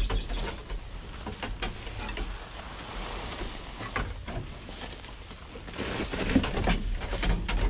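Rustling of a handful of fresh green fodder being pushed through the bamboo slats of an animal cage, with scattered light clicks and knocks, loudest near the end.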